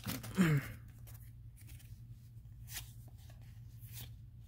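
Yu-Gi-Oh trading cards being flipped through by hand, a few soft slides and flicks about a second apart, after a brief low voice sound at the start.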